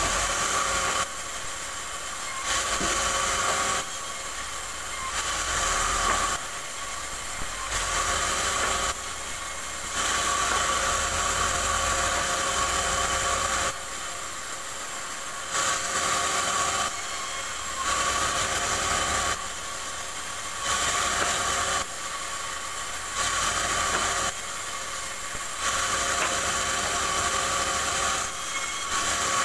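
Large bandsaw running and cutting rubberwood boards pass after pass. It gets louder and brighter during each cut of about one to two seconds and drops back to the running blade between cuts.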